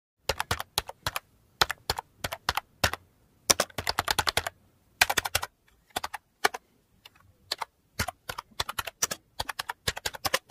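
Typing sound effect: sharp key clicks in quick, irregular runs separated by short pauses.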